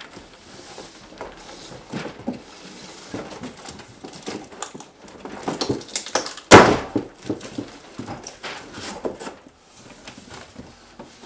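Large cardboard shipping box being handled and opened: flaps flexing and scraping, with scattered knocks and one loud thump about six and a half seconds in.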